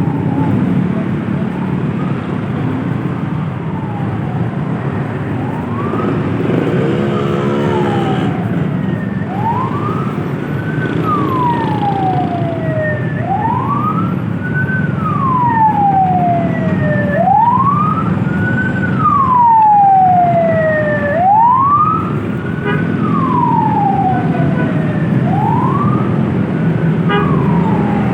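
A siren wails, rising and falling in pitch about every four seconds and growing louder partway through, over steady vehicle and road noise.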